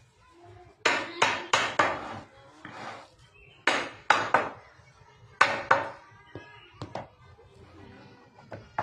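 Sharp blows of a tool striking wood, about ten in quick runs of two to four, followed by a few lighter taps.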